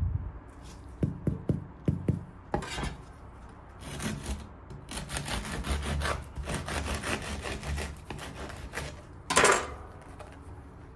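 Crisp crust of a sourdough olive ciabatta crackling in the hands, then a serrated bread knife sawing through the loaf in quick back-and-forth strokes, crunching through the crust. A louder crunch comes near the end as the cut goes through.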